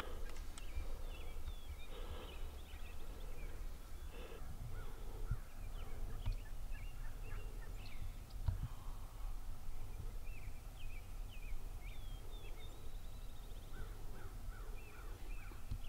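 Wild turkeys calling in the field over a low steady wind rumble, with many songbirds chirping and whistling throughout. A few soft low thumps come about five, six and eight and a half seconds in.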